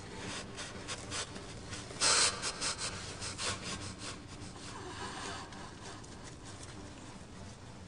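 A raccoon pawing and scratching at a wire-caged bird feeder: a run of short scratchy clicks and rubs, with a louder scrape about two seconds in. Softer rustling follows in the second half.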